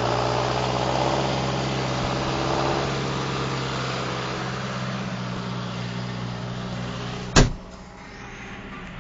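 6420 combine harvester's engine and threshing machinery running steadily, heard through the open cab door. About seven seconds in the cab door slams shut with a sharp bang, after which the machine sounds muffled and quieter.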